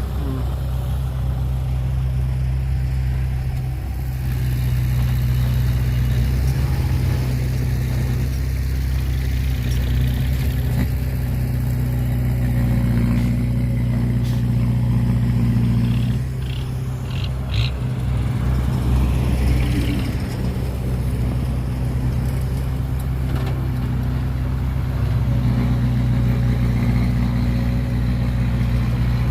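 Heavy diesel engine of earthmoving machinery running steadily with a deep, even drone. Its level dips briefly a little past halfway, where a few short clicks are heard.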